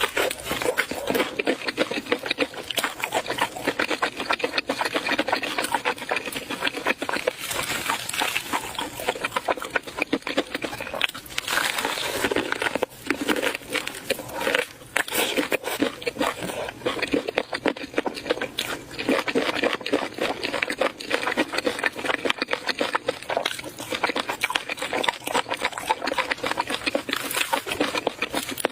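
A person chewing and eating food: a dense, continuous run of small mouth clicks and smacks.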